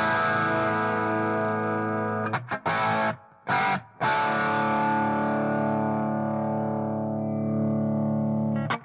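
Electric guitar played through a Leslie speaker cabinet's speaker with the rotor not yet spinning. A chord rings out, a few short strummed stabs follow about two and a half to four seconds in, then a long chord is left to ring and slowly fade before fresh chords start near the end.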